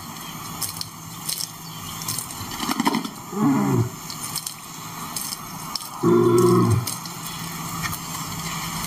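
Male lion, one taken for the Cape or Barbary strain, calling twice: a short grunt about three and a half seconds in, then a louder, longer grunting call about six seconds in.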